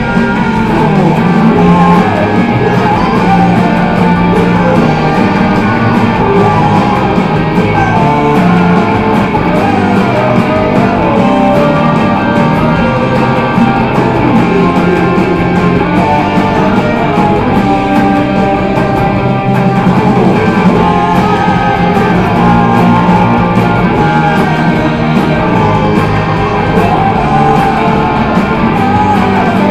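Rock band playing at a steady level, led by guitars.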